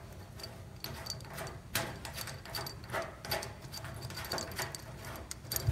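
Metal circular multi-pin cable connectors clinking and clicking as they are handled and pushed onto their panel sockets by hand: a string of irregular small metallic clicks.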